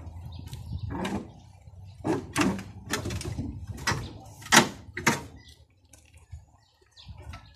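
A string of about six sharp metal clanks and knocks from hand tools and engine parts as a VW Beetle engine is worked loose for removal. The loudest comes about four and a half seconds in, and the knocks die away near the end.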